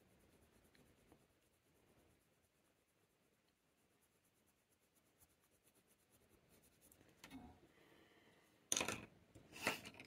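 Coloured pencil strokes on hot-press watercolour paper, faint for most of the time, with two louder strokes near the end.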